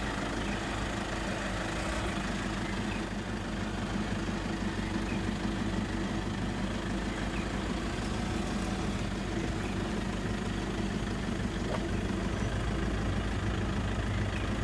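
Vehicle engine idling steadily, a low, even hum.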